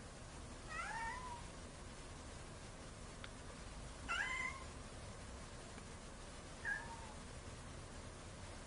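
Tabby cat meowing three times, short calls a few seconds apart; the second is the loudest and the last is the shortest.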